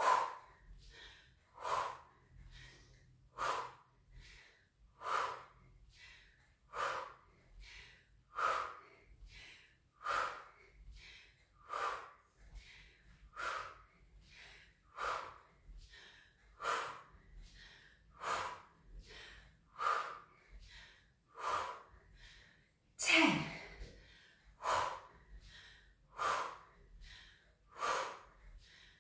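A woman breathing hard in time with a repeated squat-and-arm-raise exercise, a sharp breath out about every second and a half with softer breaths between. Near the end comes one louder, voiced breath out.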